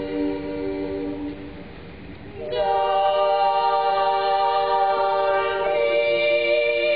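Boys' choir singing a cappella in sustained chords: a held chord fades away, then about two and a half seconds in the voices come in louder on a new long-held chord, which shifts to another chord near the end.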